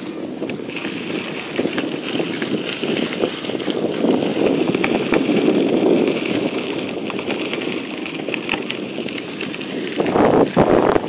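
Bicycle tyres rolling over a gravel trail, with wind buffeting the microphone; briefly louder about ten seconds in.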